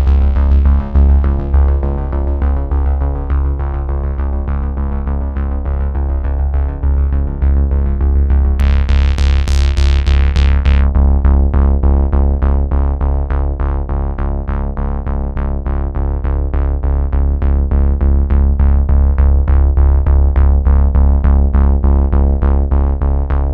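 Background synthesizer music: sustained chords over a steady low bass, with a bright hissing sweep about eight and a half seconds in, after which the music turns to quick, evenly repeated notes.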